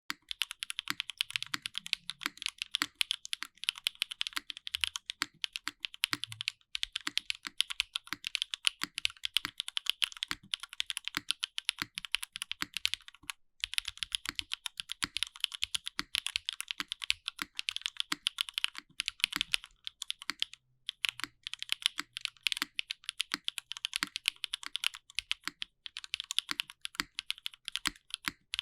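Steady fast typing on a Dalco 959 Mini custom mechanical keyboard: Black Berry switches on a polycarbonate plate, O-ring mounted with no foam, under GMK keycaps. The result is a dense clatter of keystrokes with a brief pause about halfway through.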